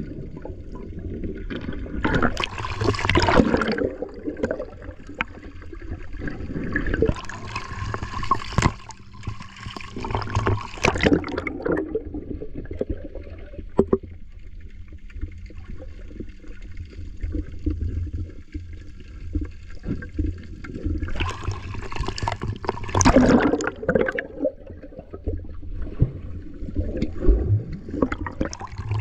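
Water gurgling and sloshing around a camera held underwater, over a steady low rumble, with several louder swells of bubbling and rushing water.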